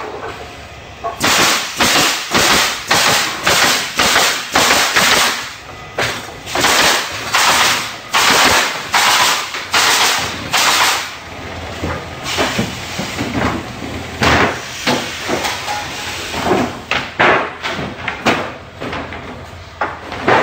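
Pallet nailing machine's pneumatic nailers firing in a rapid series, each shot with a burst of air, about two a second. About twelve seconds in the shots give way to lighter, irregular knocks and clatter of boards and nailers.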